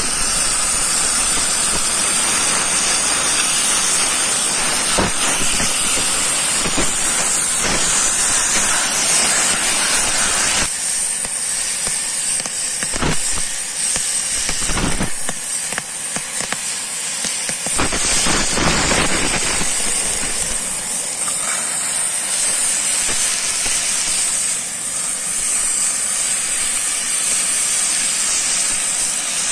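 Gas cutting torch hissing steadily as its flame cuts through a steel rail, throwing sparks and molten slag. The sound thins out about ten seconds in, with a few short clicks.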